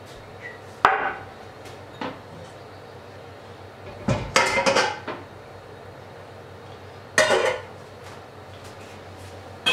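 Stainless steel pots and bowls clanking and clinking as they are handled, set down and nested into one another on a stovetop. There are single knocks about a second and two seconds in, a cluster of clanks around four to five seconds, and more clanks after seven seconds and at the very end.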